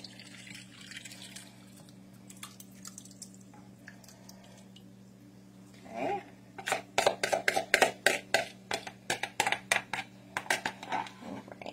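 A thick soup-and-broth mixture pouring from a mixing bowl into a baking dish, faint at first. From about six seconds in, a quick run of clicks and taps as a spoon scrapes the last of it out of the bowl.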